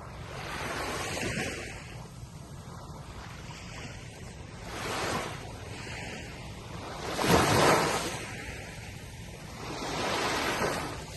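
Ocean waves breaking and washing on a shore, a swell of surf every two to three seconds, the loudest about seven seconds in.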